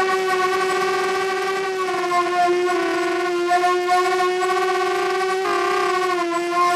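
Walkera Runner 250 quadcopter's motors and propellers whining steadily in flight, heard from on board, the pitch wavering slightly with throttle and briefly stepping up and back down about five and a half seconds in.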